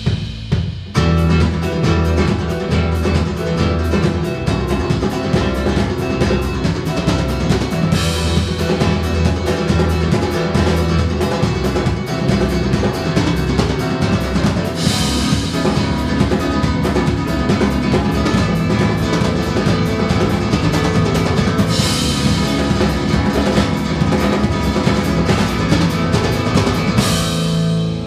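Live band playing: fast, dense drum-kit playing over held low bass notes, with a bright crash about every seven seconds. The drums come in about a second in and stop near the end, leaving the low notes ringing.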